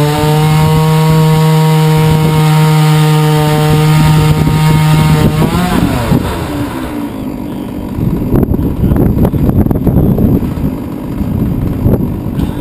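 Huztl-kit MS660-clone 99cc two-stroke chainsaw on a Granberg chainsaw mill, running at steady high revs as it rips a log. A little over five seconds in, the throttle comes off and the engine winds down to a low, uneven idle.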